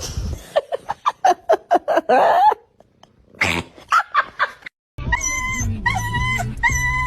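A quick run of short, high yelping cries for about two seconds, with one more a little later. From about five seconds in, music with a steady, repeating beat takes over.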